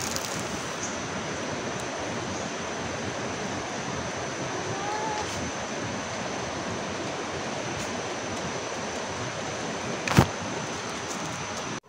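Steady rushing noise of the waterfall's rumble, heard through the forest as it is approached. About ten seconds in comes one sharp knock.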